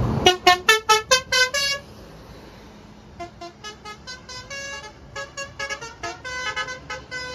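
Basuri telolet musical air horn on a bus playing a tune: a quick, loud run of about seven short horn notes, then after a short pause a longer, quieter melody of short notes at changing pitches.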